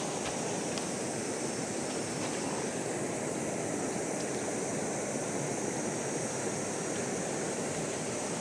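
Steady rush of a river flowing past a stony bank, an even noise with no breaks, with a steady high hiss on top.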